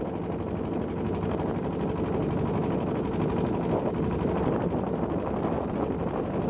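Motorised wooden country boat's engine running under way, a rapid, even knocking beat.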